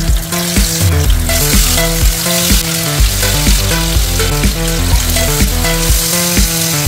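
Spice-coated sardines sizzling as they shallow-fry in hot oil, with electronic background music with a steady beat playing over it.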